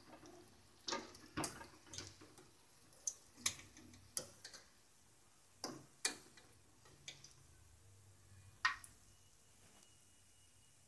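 Wire-mesh spider strainer clinking and scraping against an aluminium kadai as fried banana bajjis are scooped out of the oil: a dozen or so scattered light clicks, one louder clink late on.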